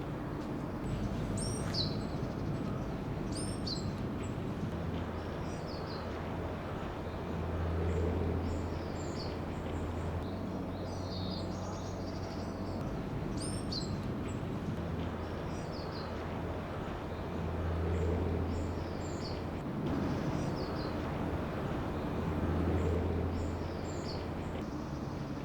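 Small birds chirping in short, repeated high calls over a low outdoor rumble that swells several times.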